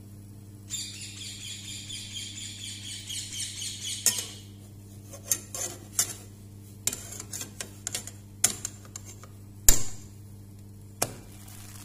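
Non-stick frying pan handled on a gas stove while a pancake is turned: about three seconds of rough scraping, then a string of sharp knocks and clanks against the pan and the stove's metal grate, the loudest about ten seconds in.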